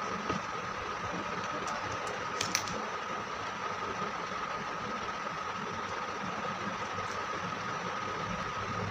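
Steady background hum and hiss with a thin constant high tone, with a few faint clicks from paper and sellotape being handled, the sharpest about two and a half seconds in.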